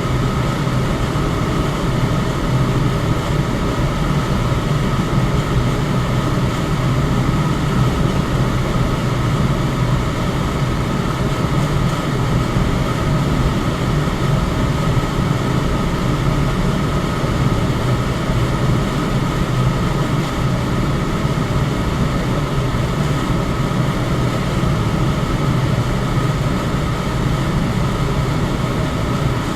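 Electric fan running steadily: an even rushing of air over a low hum, with no change in speed.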